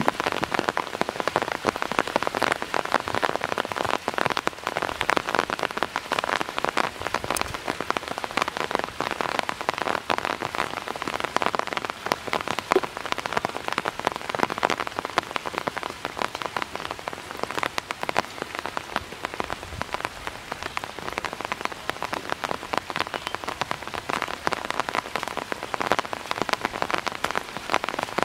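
Steady, heavy rain falling on open water, a dense hiss of countless small drop impacts.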